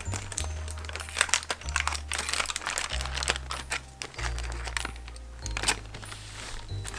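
Aluminium foil crinkling and crackling as it is peeled back off a foil loaf pan, in many quick crackles, over background music with a low bass line.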